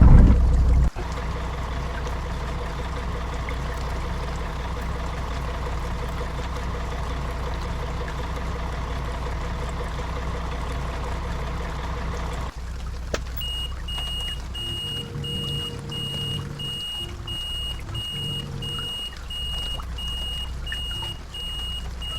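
Intercity coach engine running with a steady low hum after a brief loud noise at the start. About halfway through the sound changes abruptly: a high electronic beep begins repeating about twice a second over a lower, more uneven engine hum.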